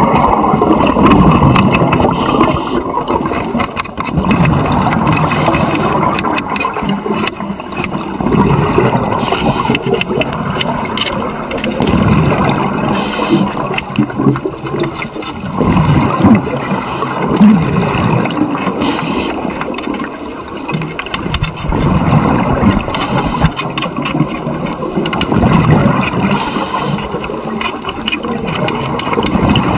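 Scuba regulator breathing underwater: a short hiss of inhalation every three to four seconds, between swelling rumbles of exhaled bubbles. A scraper rasping against the fouled metal bars of the cage is heard at times under the breathing.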